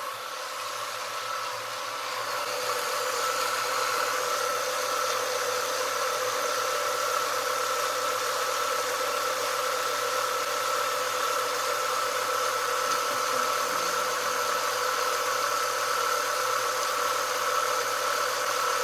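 1996 Ford Mustang engine idling steadily, with a steady whining tone over the running. The sound grows louder over the first three seconds or so, then holds even.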